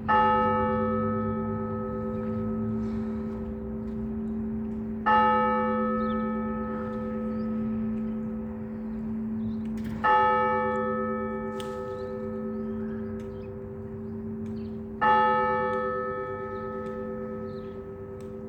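A single Orthodox church bell struck four times, evenly about five seconds apart, each stroke ringing on into a long, slowly fading hum: the even tolling (blagovest) that calls people to a service.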